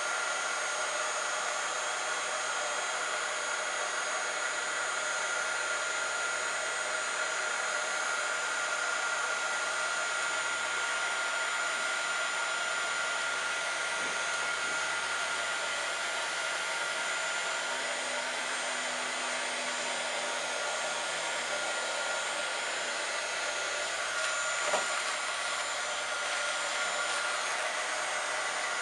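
Handheld craft heat tool blowing hot air steadily: an even rush of air with a thin, steady whine from its fan.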